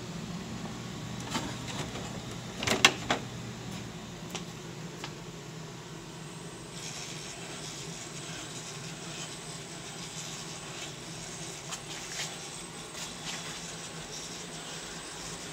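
Traxxas TRX-4 RC crawler on a 3S battery, its electric motor and geared drivetrain whining steadily as it crawls over wooden slats. Its tyres and chassis knock and clatter against the wood, loudest in a cluster of sharp knocks about three seconds in, with scraping and small clicks through the second half.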